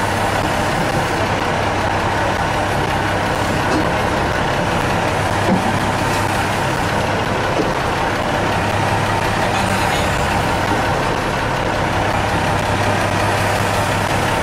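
Fishing boat's engine running steadily, a low even drone with no change in speed.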